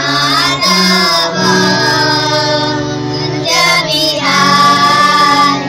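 A group of children singing together to a harmonium, which holds steady notes beneath the voices.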